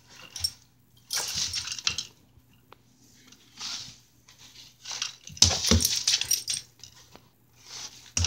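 A dog scampering on a wooden floor, its claws clicking and scrabbling in several short bursts, with two dull thumps about five and a half seconds in.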